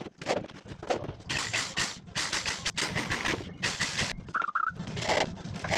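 A corded power drill driving screws into pine battens in short irregular bursts, with clatter from handling the wood. A brief high tone sounds about four seconds in.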